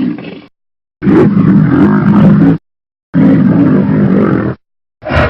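Monster roar sound effects: deep growling roars, each about a second and a half long, cut apart by dead silence. One trails off at the start and a short one comes in near the end.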